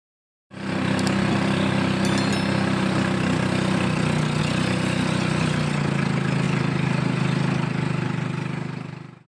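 Klotok motorboat engine running steadily at an even speed. The sound fades in about half a second in and fades out near the end.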